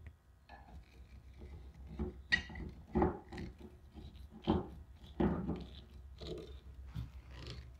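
Aluminium pressure washer wand extension sections being handled and joined at their brass threaded fittings: a series of light knocks and clicks with rubbing in between, about eight in all.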